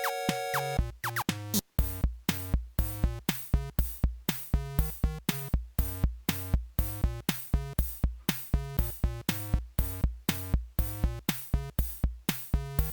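Electronic background music: a held synth chord, then about a second and a half in a steady drum-machine beat starts with a bouncy synth line.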